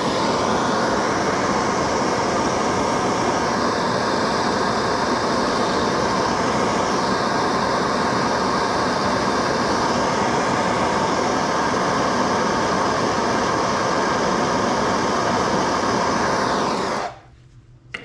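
Hose-fed gas torch burning with a steady rushing hiss as its flame heats a rivet cable end packed with flux solder paste to solder it onto a throttle cable. The flame is shut off abruptly about a second before the end.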